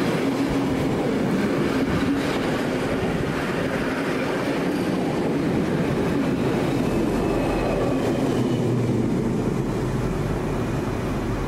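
A locomotive-hauled train of heritage passenger carriages passing close by, with a steady rumble and clatter of wheels on rail. A low hum comes in about seven seconds in as the diesel locomotive goes by.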